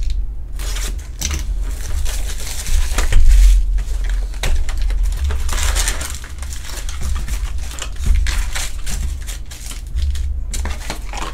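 Foil-wrapped Topps Chrome Formula 1 trading card packs rustling and crinkling as they are lifted out of a cardboard hobby box and stacked, with many small clicks and taps of packs and box. A steady low hum runs underneath.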